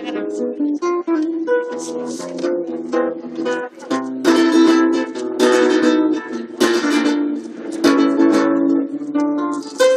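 Spanish guitar playing: quick runs of plucked notes, then several loud strummed chords about a second apart in the second half.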